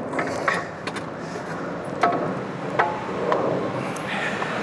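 Metal clinks and knocks as a Tesla Model 3's front suspension parts are worked loose by hand, with a few sharp clanks that ring briefly. A steady low hum runs underneath.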